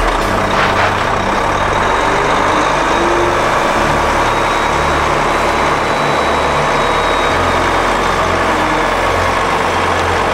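Volvo FH truck's diesel engine running at low speed while the truck manoeuvres, a steady heavy engine rumble.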